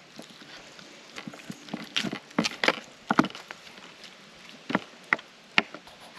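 Knife cutting a raw joint of meat on a wooden cutting board: a series of sharp taps and knocks as the blade meets the board, with a cluster about two to three seconds in and a few more near the end.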